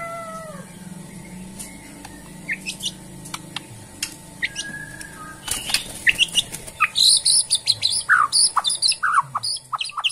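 White-rumped shama singing: a few scattered whistled and chirped notes, then from about halfway a fast, loud run of sharp chirps and rattling phrases.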